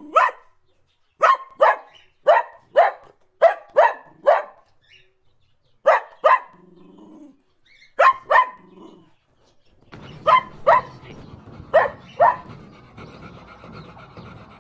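Dog barking: short, sharp barks, mostly in pairs or threes with pauses between them. A steady background hiss comes in about ten seconds in.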